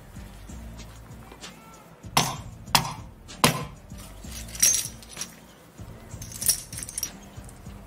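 Three sharp knocks as a gloved hand strikes a brittle white disc, then crisp crunching and crackling as it breaks apart into curved pieces and small shards.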